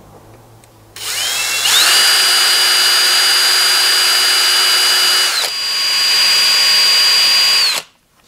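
Cordless drill boring into the side of a milling machine. The motor spins up about a second in to a steady high whine, eases off briefly midway, then runs on and stops shortly before the end.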